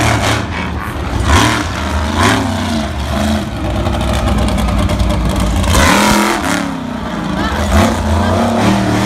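Monster truck engine revving hard as the truck races across a dirt track. Its pitch rises and falls over and over, with loud surges about a second in, near the middle, and again near the end.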